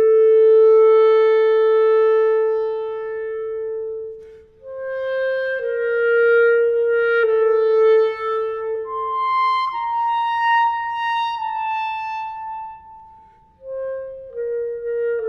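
Unaccompanied clarinet playing slow, sustained notes. One long held note is followed by a phrase that climbs to higher notes and eases back down, with short pauses about four and thirteen seconds in.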